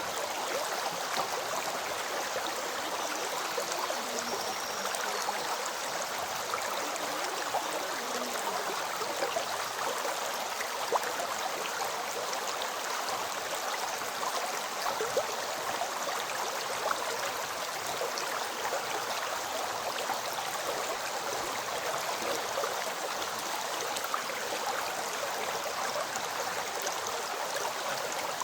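River water flowing: a steady, even rush with occasional small splashes standing out.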